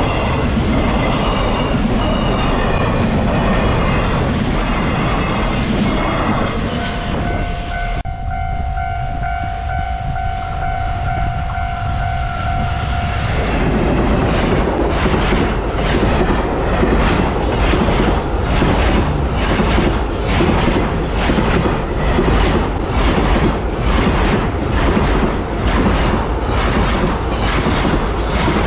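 Freight trains hauled by EF210 electric locomotives passing close by, a dense rumble and clatter. Near the middle a horn sounds one held note for about six seconds. Then a train's wagons clatter past, the wheels clacking over the rail joints in an even rhythm of one to two clacks a second.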